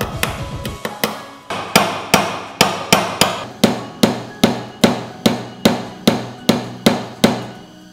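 Small hammer tapping on a metal pin set through the knife's handle on a steel bench plate, with a few light taps and then a steady run of about fifteen sharp metallic strikes, roughly two and a half a second, each ringing briefly.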